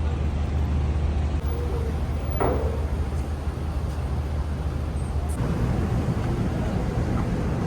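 A vehicle engine idling: a steady low rumble whose tone shifts about five seconds in.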